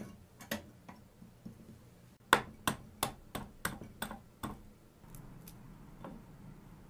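A quail egg tapped repeatedly on the rim of a small glazed ceramic bowl to crack its shell. A couple of light clicks come first, then about seven sharp taps, roughly three a second, starting about two seconds in.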